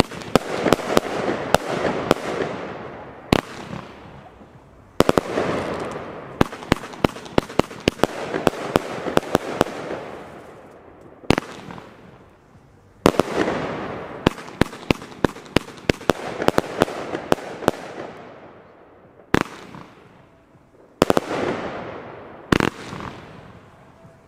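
TNT Pyro 'Fata Morgana' firework battery firing in waves: each volley starts with sharp launch reports, then a dense crackling that fades away over several seconds. A new volley begins about every eight seconds, three times.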